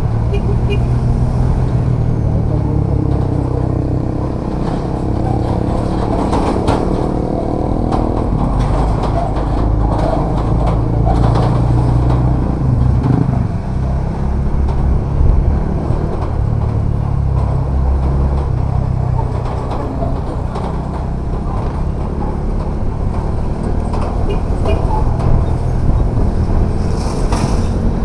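Bajaj Dominar 400's single-cylinder engine running steadily while riding at road speed, under a steady rush of wind and road noise.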